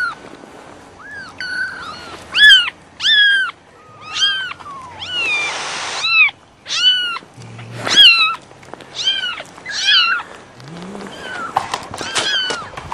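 Several young kittens, about three weeks old, mewing over and over: short, high-pitched mews, one or two a second.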